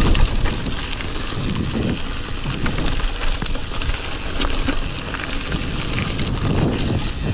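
Mountain bike rolling fast over a gravel and dirt singletrack: tyres crunching and crackling over loose stones, with the bike rattling and wind rumbling on the microphone.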